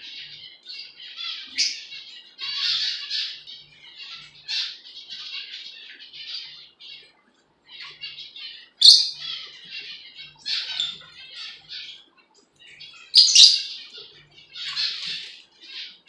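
Lovebirds chattering: rapid, shrill chirps and squeaky calls in bursts, with three louder, harsher squawks at about two, nine and thirteen seconds in.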